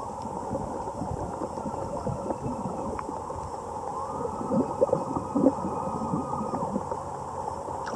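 Sound heard underwater in a swimming pool: a steady hum under gurgling bubbles, with muffled vocal sounds from a person whose head is inside an air-filled plastic container under the surface. The vocal sounds and gurgles come thickest about halfway through.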